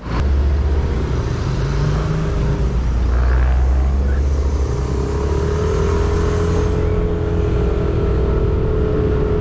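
Yamaha motor scooter's engine running steadily while riding along a street, a low hum under constant road noise.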